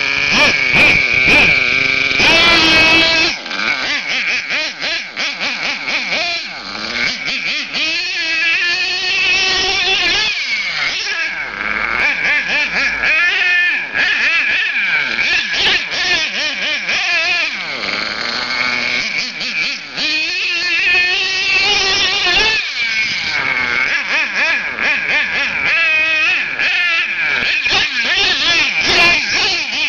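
Axial .28 two-stroke nitro glow engine of an HPI Savage X monster truck, revving up and down over and over as the truck is driven and jumped, its high pitch rising and falling with the throttle.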